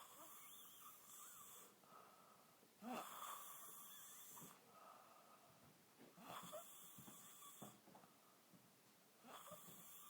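Quiet, slow snoring: four long breaths, one about every three seconds.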